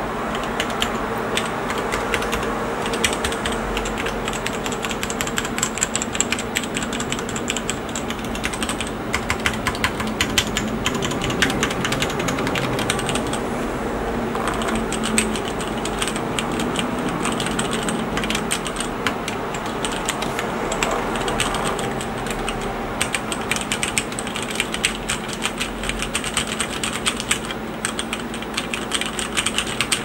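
Stock Cherry MX Board 3.0S mechanical keyboard with Cherry MX Red linear switches being typed on continuously at a brisk pace: a steady stream of key clacks, with no stabilizer rattle or hollow case resonance.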